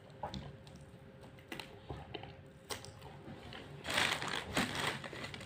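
Hand-eating from a plastic takeaway tray of chicken biryani: scattered small clicks and taps, then about four seconds in a short rustling scrape as the fingers dig into the rice and the tray.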